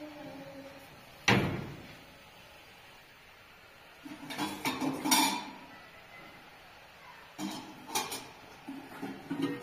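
A sharp knock about a second in, then bouts of clatter and knocking from objects being handled.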